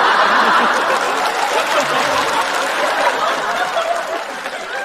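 Studio audience laughing and applauding, loudest at the start and slowly dying down.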